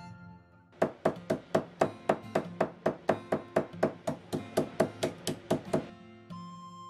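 A small hammer tapping rapidly and evenly on a small plastic zip bag laid on a wooden dresser top, about four strikes a second for some five seconds, then stopping.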